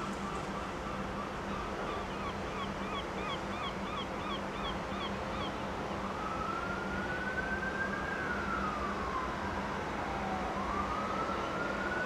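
Emergency vehicle siren wailing, its pitch rising and falling slowly over several seconds, preceded in the first half by a quick run of repeated chirps about two a second. A steady low hum and a hiss of background noise run underneath.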